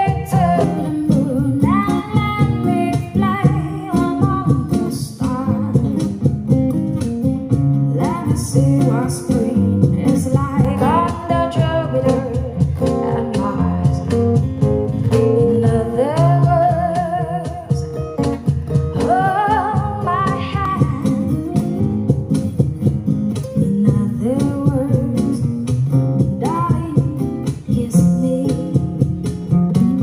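Sonos Roam portable speaker playing a song at 95% volume: a singing voice over guitar.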